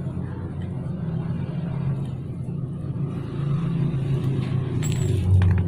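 A steady low engine-like rumble that swells from about three seconds in and is loudest near the end.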